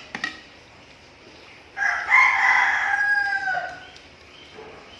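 A rooster crowing once, a call of about two seconds that drops in pitch at its end. Two short clicks come just before it, at the start.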